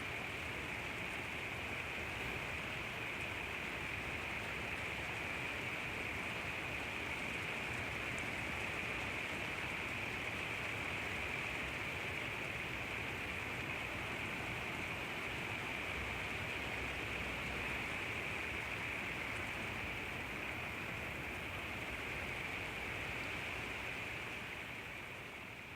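Steady rain: an even hiss of falling drops with no single strikes standing out, beginning to fade out near the end.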